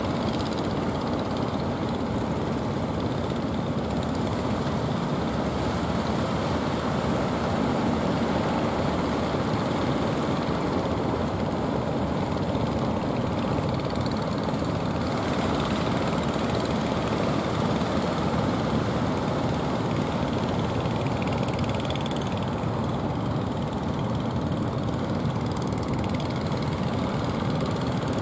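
Motors of several returning fishing boats, outrigger boats and a larger fishing vessel, running steadily as they approach, mixed with waves breaking on the shore.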